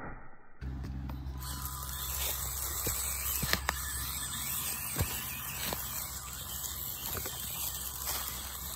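Axial SCX24 small-scale RC crawler driving over dry leaves and rocks, starting about half a second in: leaves crackling and scraping under its tyres, with scattered sharp clicks and knocks, over a steady low hum.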